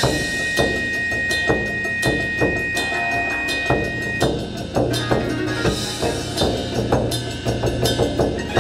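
Japanese taiko drums played in a steady, driving rhythm, with sharp rim or wood clicks among the drum strokes. A held high tone sounds over the drumming and stops about four seconds in, above a low steady drone.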